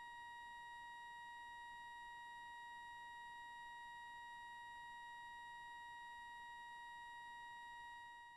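A steady, even electronic tone, like a held beep, at one unchanging high pitch, quiet, starting to fade out near the end.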